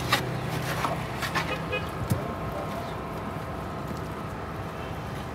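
A few sharp clinks of steel dishes in the first two seconds, over a steady low hum of busy street and kitchen background with voices.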